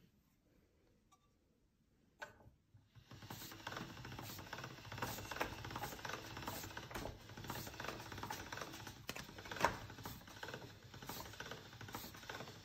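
Hand-cranked pasta machine rolling a sheet of dough through its smooth rollers: a steady run of fine clicking and rattling from the turning crank and gears, starting about three seconds in, with one sharper click a little past halfway.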